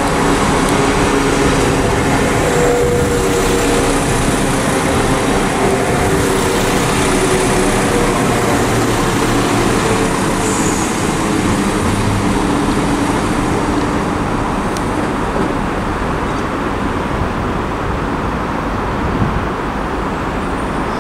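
Three-car Class 172 diesel multiple unit arriving along a platform and slowing to a stop, its diesel engines and wheels running steadily. It is loudest in the first half as it passes, with a few steady tones, and eases off toward the end.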